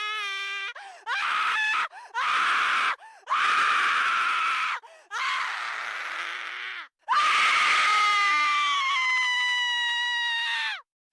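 A girl screaming in a series of high-pitched screams, about six in all: several short ones of under a second to two seconds each, then one long scream of about three and a half seconds that drops in pitch as it ends.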